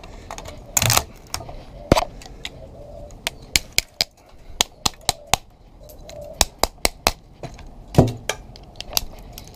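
A brittle TV circuit board cracking and snapping under pliers as a piece carrying a copper transformer spool is broken off. It makes a string of irregular sharp cracks and clicks, loudest about a second in.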